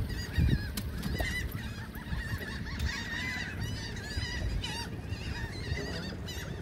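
Many seabirds calling over one another, a continuous stream of short, arching squawks, over the low rumble of a dinghy's outboard motor.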